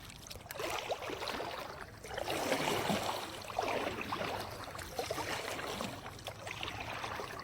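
Kayak paddle strokes in shallow water, a repeated swish and splash of water with each stroke, every second or so.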